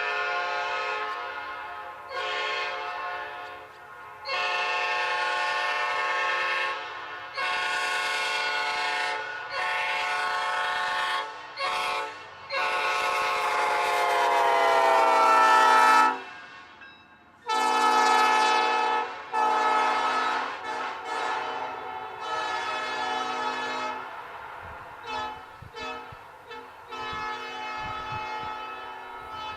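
Multi-chime locomotive air horn blown in a string of blasts of varying length with short gaps. The longest blast, about three and a half seconds, sags in pitch as it ends, and later toots are shorter and fainter.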